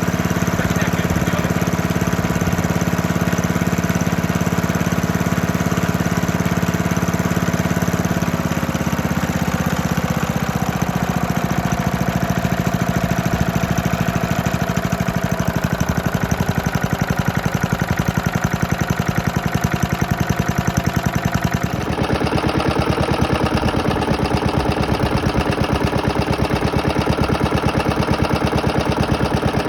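1972 Hayterette rotary mower's small, worn engine running steadily after a hard start. Its speed drops about a third of the way in, and the sound changes abruptly about three quarters of the way through.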